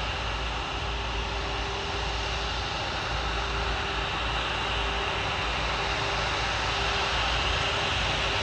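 Boeing 777 jet airliner's engines running steadily, a continuous jet drone and hiss that grows slightly louder near the end.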